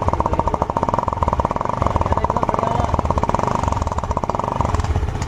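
A scooter's exhaust running at idle: rapid, even popping pulses from the short tailpipe, with the note changing a little near the end.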